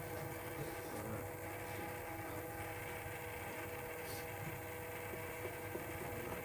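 Steady faint hum with a few thin, unchanging tones and no distinct events.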